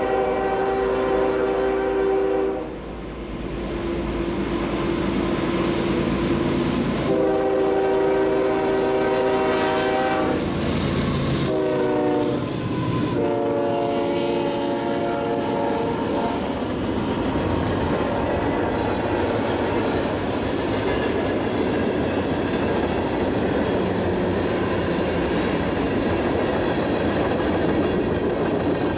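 CSX freight locomotive sounding its horn in long blasts as it approaches, the horn's pitch sliding down as the locomotive passes about twelve seconds in. After that, the steady rumble and clickety-clack of the freight cars rolling past.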